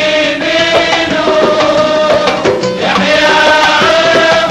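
Men's chorus singing a Kuwaiti folk song together in long held notes, with hand drums beating along.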